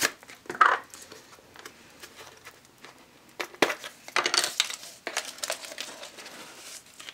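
Handling noise from a spice jar and a plastic measuring spoon as ground black pepper is measured out: a few short rustles and light clicks, the loudest a little after the middle.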